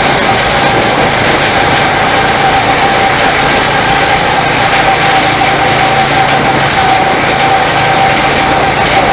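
Go-kart engine running at speed, a loud, steady engine note with a high whine that holds without revving up or down.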